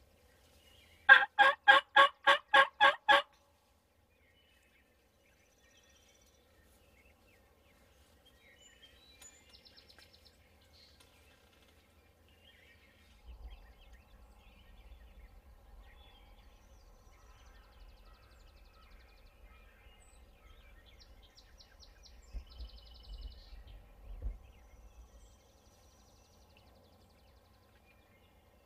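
Turkey gobble: one loud, rapid rattling series of about nine notes lasting about two seconds, starting about a second in.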